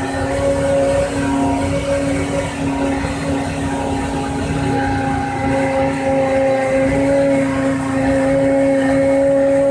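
The spindle motor of a homemade CNC machine running at a steady pitch.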